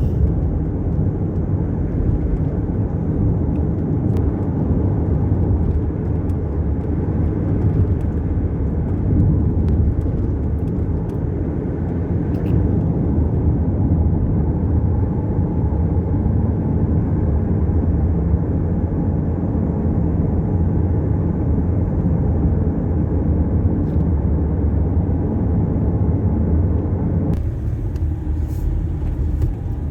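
A car driving at steady speed: continuous engine and tyre noise, strongest in the low range, which eases slightly near the end.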